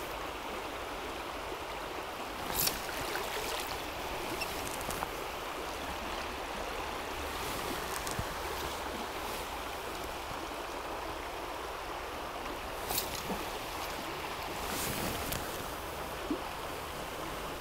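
Shallow freestone river running over stones: a steady rush of water, with a few brief sharp noises now and then.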